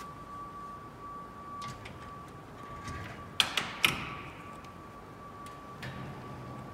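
Clamp frame of a Formech vacuum former being lowered and locked down: a few light clicks, then two or three sharp metal knocks a little past halfway. A steady high tone runs underneath.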